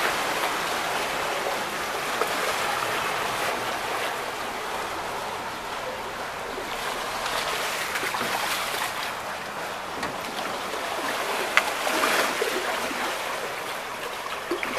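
Floodwater flowing and lapping through a flooded street: a steady rushing wash of water, with one sharp tick about eleven and a half seconds in.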